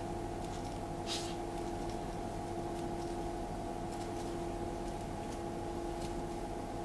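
Steady mechanical hum made of several constant tones over a low mains buzz, with one faint soft tick about a second in.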